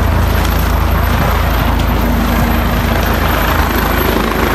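Helicopter running close by: a loud, steady rotor and engine noise with a fine, rapid low beat. A steady hum joins in about two seconds in.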